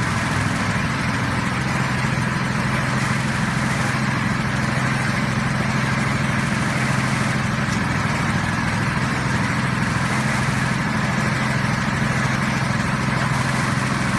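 Small engines of a portable hydraulic water-well drilling rig and its petrol water pump running steadily while the drill rod bores down, a constant low hum with an even hiss over it.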